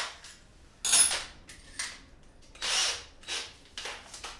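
Cordless drill motor spun in several short bursts with a hand on the chuck, tightening an 8mm masonry bit into the keyless chuck.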